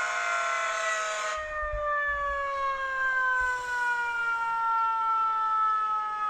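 Fire engine siren in a slow wail, its pitch gliding steadily down for several seconds and then starting to climb again at the very end. A hissing noise lies over it for about the first second.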